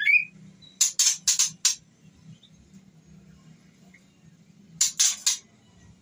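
Female white-rumped shama in breeding condition calling to a male: the end of a whistled note, then harsh rasping notes, four in quick succession about a second in and three more near the end.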